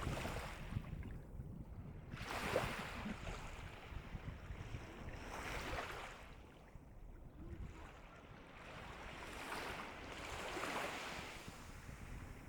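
Calm sea waves washing in, three swells of hiss that rise and fade one after another over a steady low rumble.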